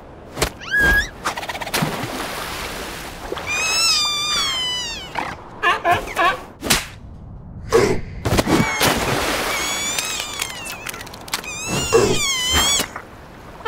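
Cartoon seal characters making wordless cries: long wobbling, warbling calls in two spells, with several short knocks between them.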